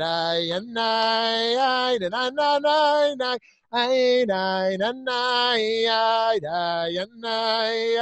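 A single voice singing a slow, wordless-sounding melody in long held notes, stepping between a few pitches, with a short breath break about a third of the way through.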